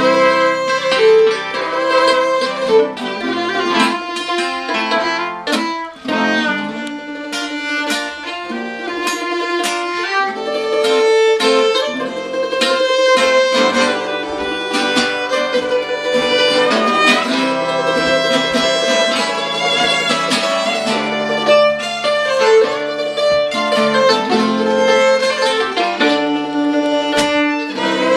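Acoustic bluegrass string band playing an instrumental tune: fiddle, archtop acoustic guitar and mandolin together.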